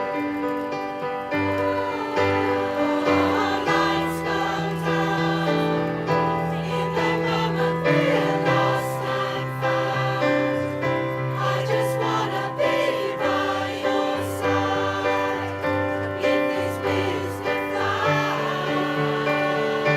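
A choir singing a song in several parts, with held bass notes underneath.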